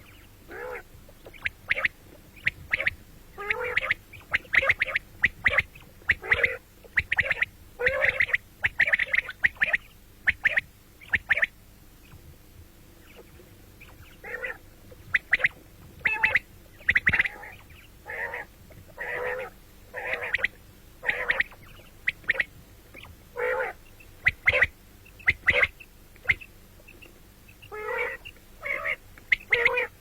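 Quail calling over and over: clusters of short, sharp call notes, with a few seconds' break about halfway through.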